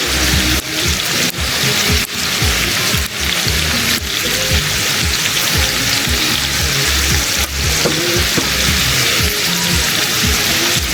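A steady hissing noise, with soft background music under it.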